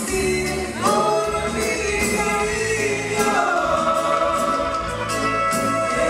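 Music with singing over a steady bass line; the melody holds long notes and slides up about a second in.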